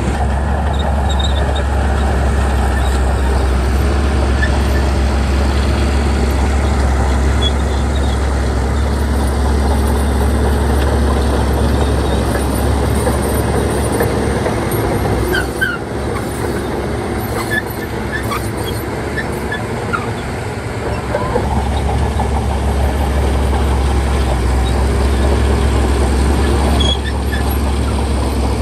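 Heavy diesel engine of earthmoving machinery running steadily under load, easing off for about five seconds past the middle and then picking up again, with scattered short high squeaks over it.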